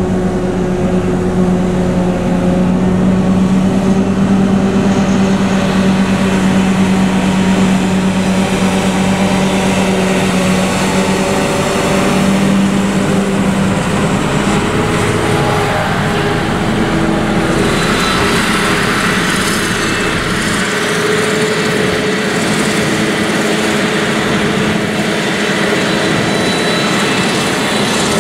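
Claas Jaguar forage harvester and Claas Arion tractor running together while chopping and blowing silage into a trailer: a loud, steady engine and machinery drone. About two-thirds of the way through, the deep hum fades and a higher whine comes to the fore.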